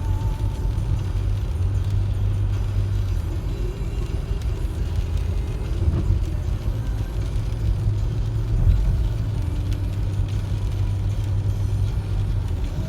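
Steady low rumble of a car running.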